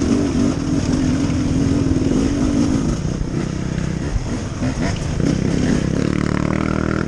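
Beta 300RR two-stroke dirt bike engine running under load on a trail ride, holding a steady pitch for the first few seconds, then rising and falling as the throttle is worked.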